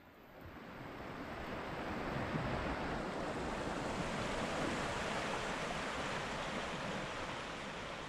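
Mountain creek rushing through a rocky gorge, a steady rush of water that swells up over the first two seconds.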